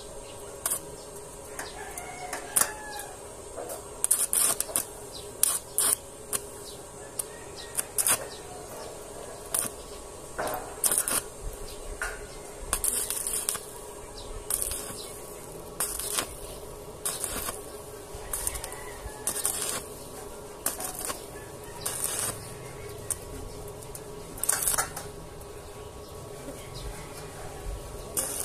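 Stick arc welding on a steel C-purlin: short, irregular bursts of crackling arc, each a second or less, struck and broken many times, over a steady hum.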